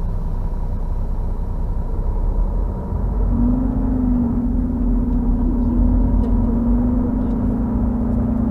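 Semi truck's diesel engine running with a low rumble heard from inside the cab as the truck creeps forward. About three seconds in a steady humming drone joins it, wavering a little at first and then holding.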